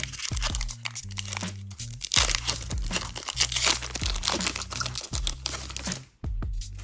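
Foil booster pack wrapper crinkling and tearing as it is opened, loudest from about two seconds in until past four seconds, over background music with a low bass line.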